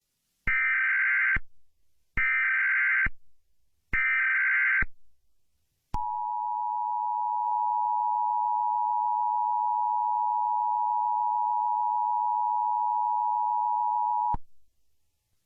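Emergency Alert System (EAS) opening: three SAME header data bursts, each a harsh warbling screech of digital tones about a second long, then the two-tone EAS attention signal held steady for about eight seconds before cutting off abruptly. It signals that an emergency alert message follows.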